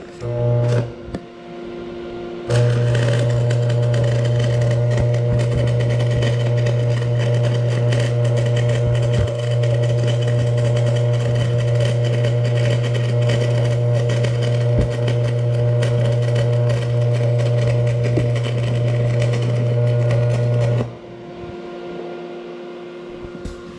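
Stick-welding arc from a Vulcan Commander 225 transformer welder on DC positive, being restarted on a half-finished bead. A brief strike about half a second in, then the arc catches at about two and a half seconds and burns steadily with a crackle over a strong low hum for about eighteen seconds, cutting off shortly before the end.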